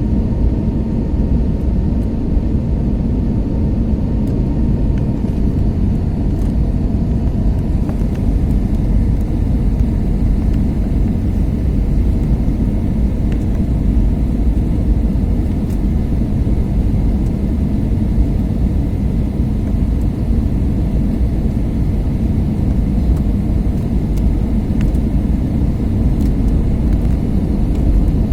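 Steady low rumble of airliner cabin noise, engine and airflow sound heard from inside the passenger cabin, with no sudden changes.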